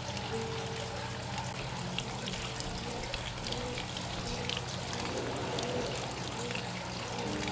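Running water trickling and splashing steadily, with many small splashes.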